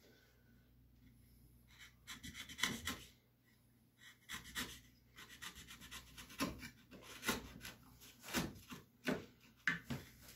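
Knife paring and scraping wood from the edge of a routed cavity in a solid bass guitar body: a dozen or so short, irregular cuts, starting about two seconds in.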